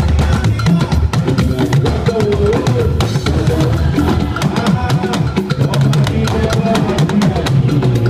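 Live church drumming: several talking drums struck in a fast, dense rhythm over a strong low drum beat, with pitch bends in the drum tones.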